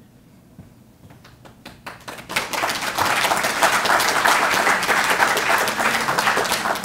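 Audience applauding: a few scattered claps at first, swelling into full applause after about two seconds, starting to die down near the end.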